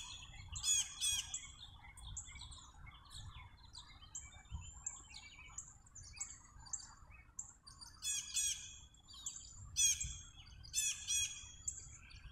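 Songbirds chirping and calling repeatedly with short, high, quick notes, with a few louder rapid runs of chirps about eight to eleven seconds in, over a low outdoor rumble.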